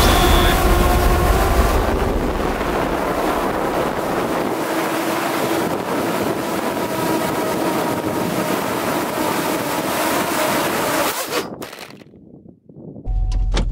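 Drone motors and propellers whirring steadily under a rush of wind on the onboard microphone. The sound cuts out about 12 seconds in, and a low car-interior rumble starts just before the end.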